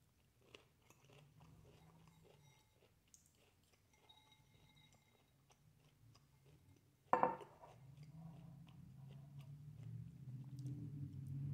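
A person chewing and biting broccoli, with faint wet mouth sounds. A single sharp knock comes about seven seconds in, and the chewing grows louder toward the end.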